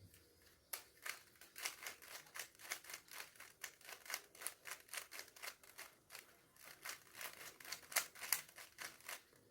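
Plastic Rubik's cube layers being turned by hand in quick succession: a run of sharp clicks and clacks, about three a second, as the last sides are matched.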